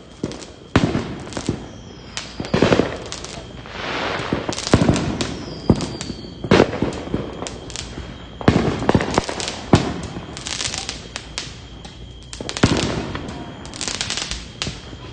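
Fireworks going off all around: clusters of sharp bangs and rapid firecracker cracks every few seconds, with a couple of faint falling whistles between them.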